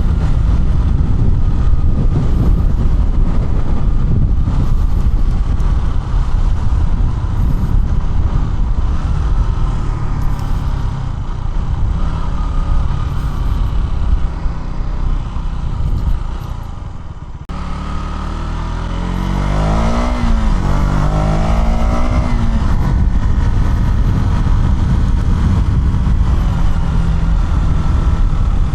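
KTM Duke 200's single-cylinder engine running under way with wind rush. Past the middle the engine eases off, then revs up and drops back twice in quick succession.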